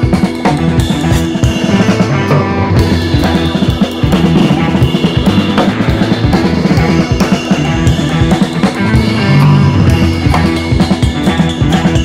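Background music with a drum-kit beat of bass drum and snare over held instrumental tones.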